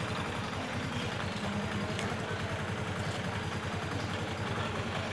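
A vehicle engine running steadily, a low, rapid throb with road or wind noise over it.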